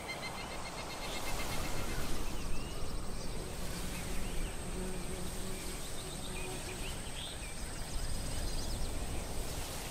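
Woodland dusk ambience: birds chirping and insects trilling over a steady high insect drone and a low rumble, starting abruptly out of silence.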